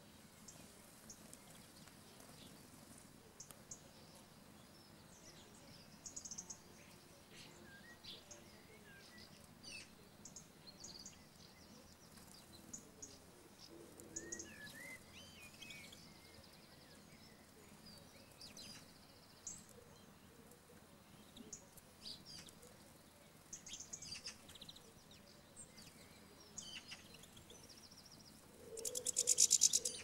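Small finches and house sparrows at seed feeders giving scattered short chirps and twitters over a faint steady background hiss. Near the end comes a louder, rapid flutter of wings close by.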